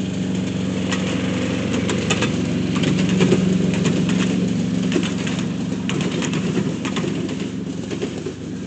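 Engine of a 7¼ inch gauge miniature railway locomotive running steadily, with a string of sharp clicks over it. It grows slightly louder and then fades a little, as if the train is moving past.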